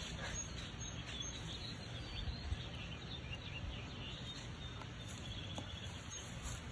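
Outdoor ambience: small birds chirping in short high calls scattered throughout, over a steady low rumble.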